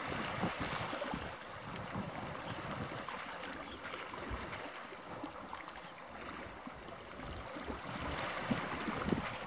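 Wind buffeting the microphone over a steady wash of water, with stronger gusts near the start and near the end.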